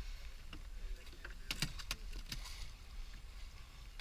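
A halibut flopping on a fiberglass boat deck: a quick cluster of sharp slaps and knocks about a second and a half in, with a few fainter taps around it, over a low wind and boat rumble.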